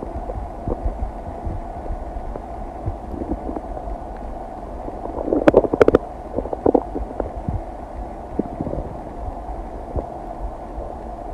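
A human stomach gurgling while it digests a meal, with small scattered gurgles and a louder burst of bubbling and popping gurgles about halfway through.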